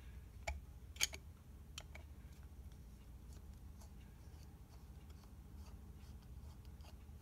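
Screwdriver turning out the small spring-loaded crane lock screw in the side of a Colt Official Police revolver's steel frame. A few faint metallic clicks come in the first two seconds, the loudest about a second in, followed by scattered faint ticks over a low steady hum.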